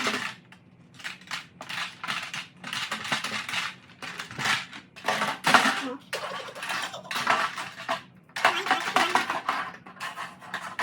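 Irregular clinking and clattering of small hard objects, dish-like, in quick bursts with short pauses.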